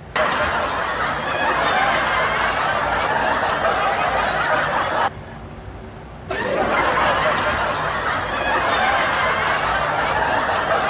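Laughter sound effect: a crowd laughing loudly. It cuts off suddenly about halfway through and starts again about a second later.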